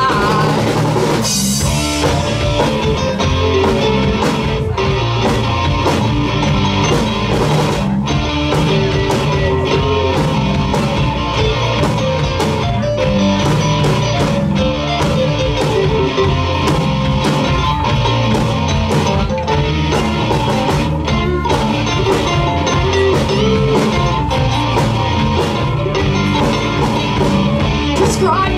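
Rock band playing live in an instrumental passage with no vocals: electric guitars, bass guitar and drum kit, drums and cymbals struck on a steady beat.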